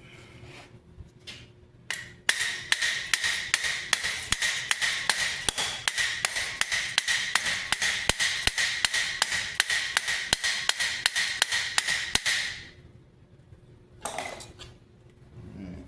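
Hammer blows on the steel of a great helm (Topfhelm), a fast even run of about three to four strikes a second with a ringing metallic tone beneath. The run starts about two seconds in and stops suddenly near the end.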